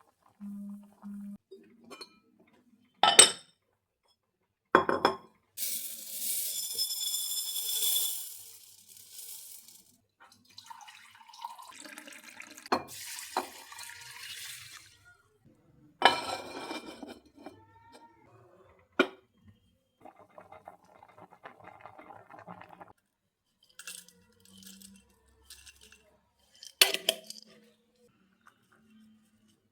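Kitchen handling sounds: dishes and glassware knocked and set down several times, with water running from a tap for a few seconds twice.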